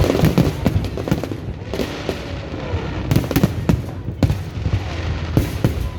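Aerial fireworks going off in quick succession: a steady patter of sharp bangs and crackling, with a few heavier booms a little past the halfway point.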